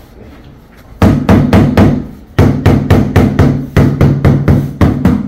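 Rapid mallet strikes on a porcelain floor tile, tapping it down into its mortar bed to bring it level with the laser line. The dull thuds start about a second in, come about four a second, and pause briefly near the middle.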